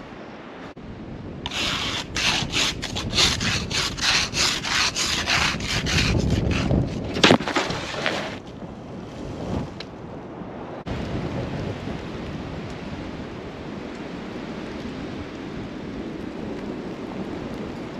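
A run of fast, rhythmic scraping strokes, about two or three a second, for around seven seconds, with one sharper stroke near the end of the run. After that comes steady wind noise.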